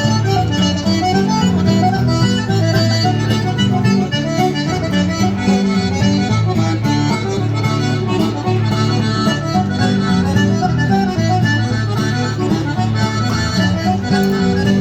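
Irish music playing steadily, a tune of many quick notes over a sustained low accompaniment.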